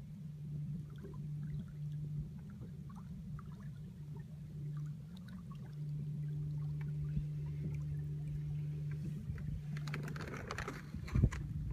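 A small boat's motor running at a steady low hum, with light ticks of water against the hull. About ten seconds in, a short louder rushing noise.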